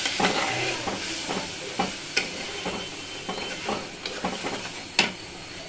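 A flat metal spatula stirring and scraping a thick curry masala in a kadai, with the masala sizzling as it is fried down after a splash of water was added to stop it sticking. Scattered scrapes and clicks of the spatula on the pan, with one sharp click about five seconds in.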